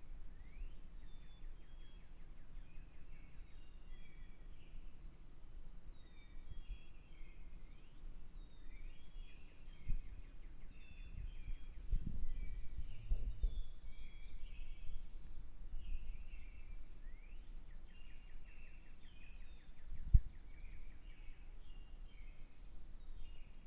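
Several small birds chirping and singing together in an early-morning chorus: short sliding chirps overlapping with rapid high trills throughout. A few low thumps come in partway through.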